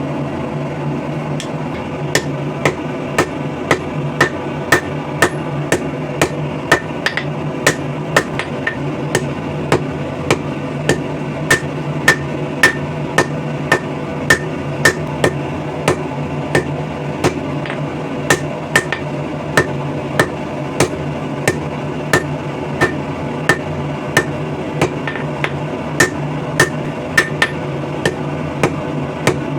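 Blacksmith's hand hammer striking hot steel on an anvil, forging a wrench into a throwing knife: steady blows about two a second, each with a short metallic ring, starting about two seconds in and pausing briefly past the middle, over a steady background hum.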